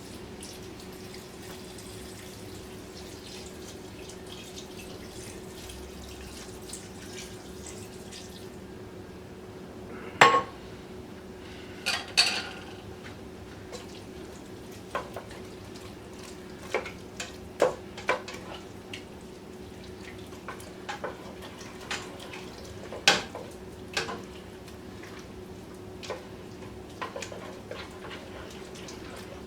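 A spoon clinking and knocking against a cooking pot while a flour-and-butter mixture is stirred, with one loud knock about ten seconds in and scattered clinks after it. A steady low hum and, for the first several seconds, a faint hiss sit underneath.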